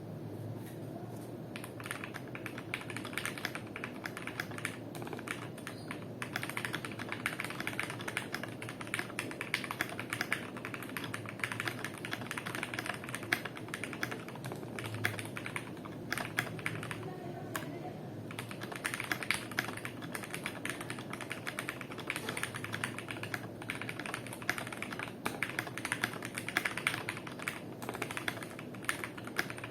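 Continuous fast typing on a custom 60% mechanical keyboard with lubed and filmed Gateron Milky Black linear switches, PBT keycaps, a polycarbonate plate and an acrylic case dampened with shelf liner. The keystrokes start about a second in and run as a dense stream of clicks with a few short pauses.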